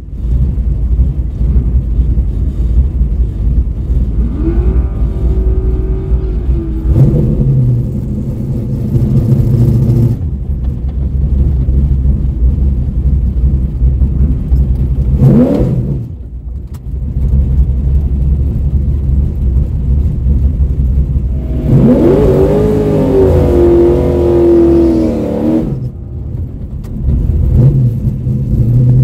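Drag car's engine heard from inside the car, idling with a low steady drone and blipped up briefly a few times. About two-thirds of the way through it is revved and held high for about four seconds, then drops back to idle.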